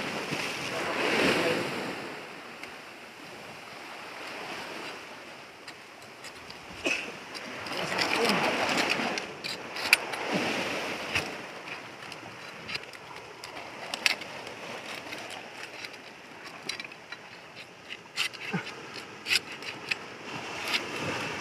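Ocean surf washing against rocks in surges. From about halfway on come sharp clicks and scrapes of a knife blade against rock as it pries gooseneck barnacles out of a crevice.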